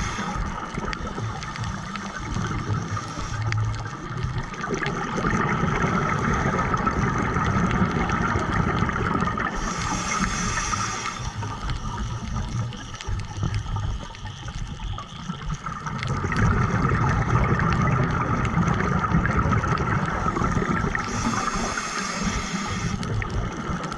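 Muffled underwater sound from a diver's camera: low gurgling and rumbling of water with a steady hum. Twice, about eleven seconds apart, a hissing rush of bubbles from a scuba diver's regulator exhaust as the diver breathes out.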